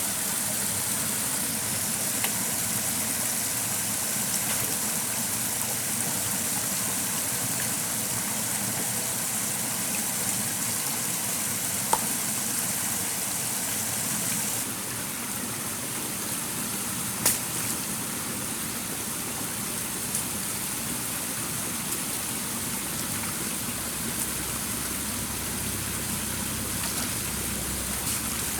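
Stream water running steadily, with a few sharp knocks, the loudest about two thirds of the way through. The hiss of the water drops a little about halfway.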